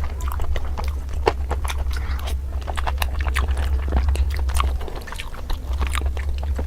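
Close-miked chewing and biting of tandoori chicken: a dense run of sharp wet clicks and crackles from the mouth, over a steady low hum that drops off about five seconds in.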